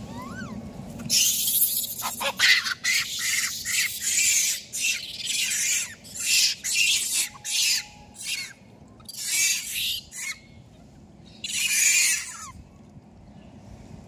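A monkey screeching in a rapid series of harsh, high calls, a dozen or so bursts of under a second each that break off a little before the end.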